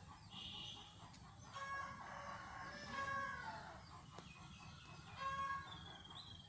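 Chickens calling: a rooster crows about one and a half seconds in, with a long call that falls in pitch at its end, and shorter calls come before and after it.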